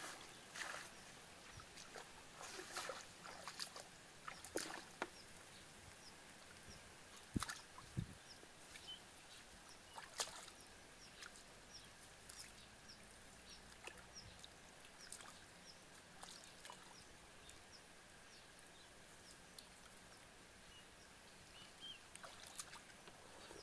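Faint, scattered splashes and sloshing of shallow muddy water as a person wades and gropes by hand for fish.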